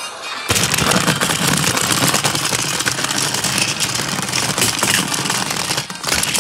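Toy train engine pulling a train of cars along plastic track, its motor and wheels making a loud, steady rattling whir that starts abruptly about half a second in.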